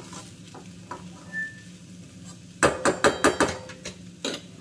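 A steel spoon stirring and scraping pohe in a steel kadhai. About two and a half seconds in comes a quick run of sharp, ringing metal clinks as the spoon knocks against steel, and one more clink near the end.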